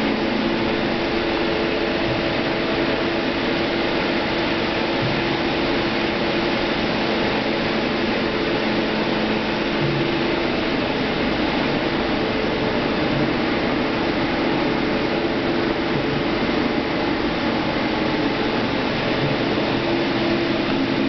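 Taurus TRD 110/3M CNC lathe running under test: a steady machine whir with several held tones over an even mechanical noise.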